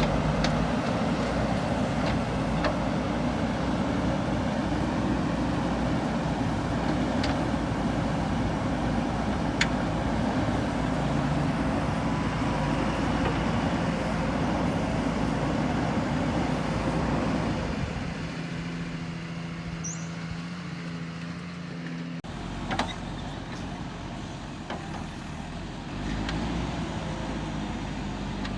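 JCB 3DX backhoe loader's diesel engine running under working load, with a few sharp metallic clanks. About two-thirds of the way in it drops to a lower, steadier note, then picks up again.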